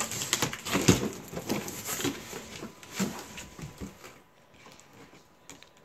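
Cardboard flaps of a large shipping box being pried and pulled open: a run of scraping and crackling cardboard noises, loudest in the first three seconds, dying down after about four seconds to a few faint clicks.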